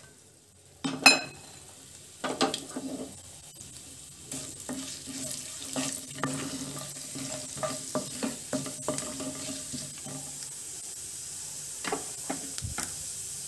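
Mustard and cumin seeds sizzling in hot oil in a nonstick kadai for a tempering, with scattered small crackles and pops as the mustard seeds begin to splutter. A single clink sounds about a second in.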